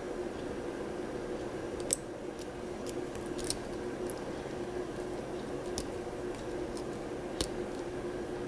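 A few short, sharp clicks, spread a second or two apart, of a lock pick working the pins of a six-pin Lockwood pin-tumbler lock under light tension, over a steady background hum.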